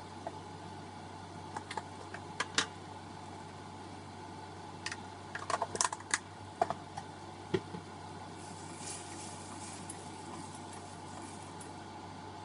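Scattered light clicks and taps of kitchen utensils against cookware, bunched in two clusters, over a steady background hum.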